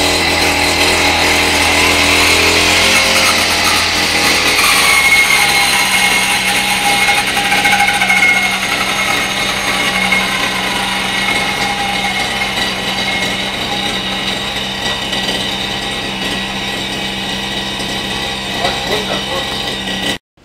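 Petrol brush cutter's small engine running with its toothed metal blade spinning: high revs at first, dropping to a steady lower speed about five seconds in. The sound cuts off abruptly near the end.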